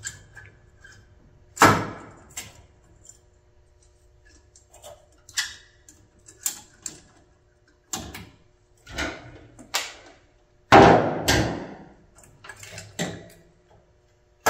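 Scattered metal clicks and knocks from a Phillips screwdriver and a headlight retaining ring as the ring's screws are backed out and the ring is lifted off a Jeep Wrangler YJ headlight. The loudest clatter comes a little after ten seconds in.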